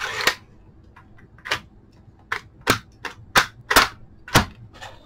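Sharp plastic-and-metal clacks, about eight of them at an uneven pace, as the plunger of a 3D-printed AR-15 speed loader is pushed down again and again to drive cartridges into the magazine. The maker suspects the plunger is a hair too short to seat the rounds fully.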